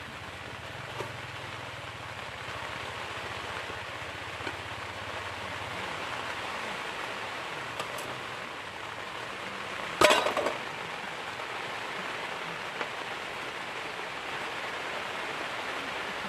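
Steady hiss of rain falling, with a sharp clink or knock about ten seconds in.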